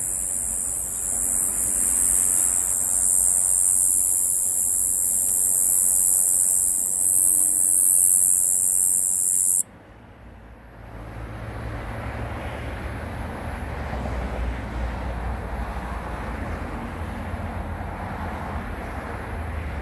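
Small conehead katydid (kkoma-yeochi-beojjangi) singing a continuous, very high-pitched buzz, which stops abruptly about halfway through. After it stops, only a low hum and faint background noise remain.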